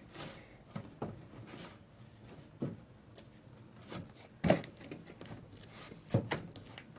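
Hands working a large lump of slime into a plastic storage container: soft squishing and rubbing with a few light knocks of the container, the loudest about four and a half seconds in.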